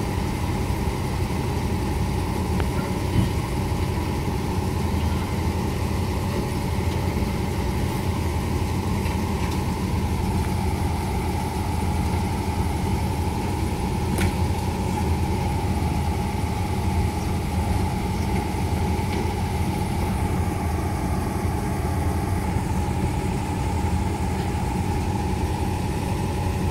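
Fahr M44 combine harvester's engine idling steadily.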